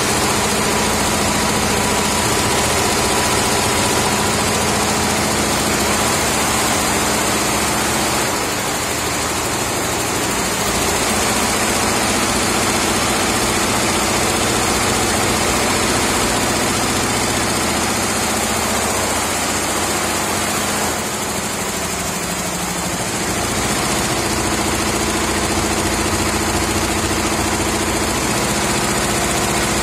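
A 68-head Yenthin multi-head embroidery machine running, its rows of needle heads stitching together in a loud, steady mechanical noise that dips slightly twice.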